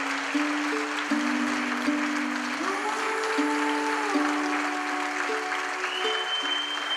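Slow background music with long held notes, over steady audience applause.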